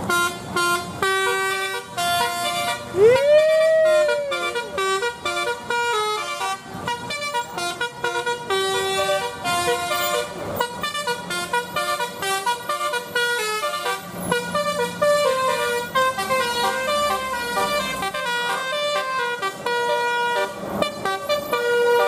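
Bus telolet horn, a multi-note musical air horn, playing a fast tune of stepped notes, with a single rising-and-falling swoop about three seconds in.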